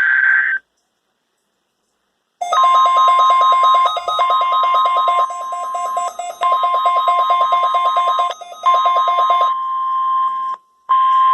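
Tail of a NOAA Weather Radio SAME digital header burst, a pause, then the 1050 Hz warning alarm tone sent for the weekly test, with a weather radio receiver's own rapid pulsing alarm beeping over it, about ten pulses a second, briefly dropping out a few times. Near the end the steady 1050 Hz tone sounds alone.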